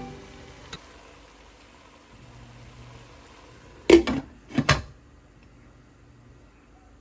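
Quiet room tone with two short sharp knocks, about half a second apart, around four seconds in.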